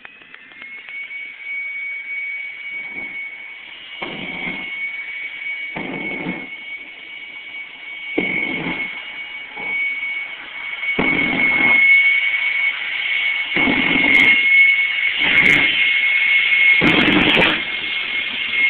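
Jet truck's jet engine running up before a run: a steady high whine that rises in pitch about a second in, then holds and grows louder, with irregular deeper rushes of sound.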